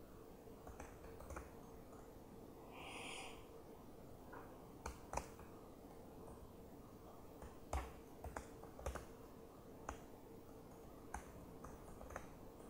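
Irregular keystrokes on a laptop keyboard, a few sharp clicks at a time, over a faint steady hum of room tone.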